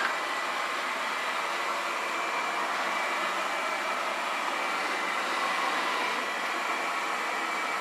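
Ecovacs Deebot T9+ robot vacuum running steadily while it drives across the floor: an even rush of suction-fan noise with a faint high whine.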